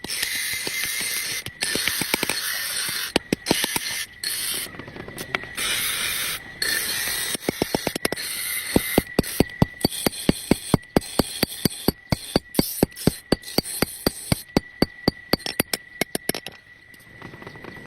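Work at a blacksmith's forge making an iron dao: quick, evenly spaced knocks, about four a second, with a hiss that comes and goes.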